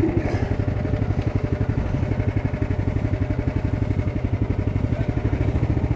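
Off-road buggy engine running steadily close by, with a fast, even pulsing beat and no revving.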